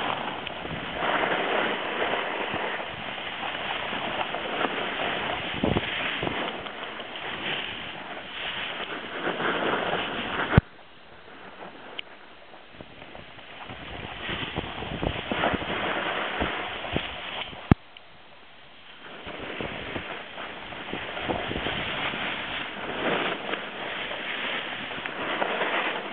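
Wind rushing over the microphone and a snowboard scraping and carving over snow at speed, the noise surging and easing. Two sharp clicks come about a third of the way in and again about two-thirds in, and the rushing drops away for a second or more after each.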